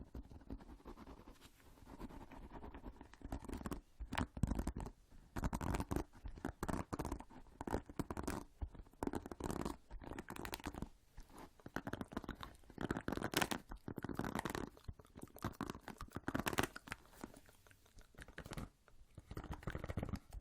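Close-miked ASMR trigger sounds: a dense run of fast, irregular clicks and crackles, softer at first and louder from about four seconds in.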